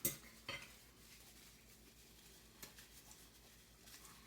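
Two sharp knocks of tableware half a second apart, then a fainter click a couple of seconds later, over quiet room tone.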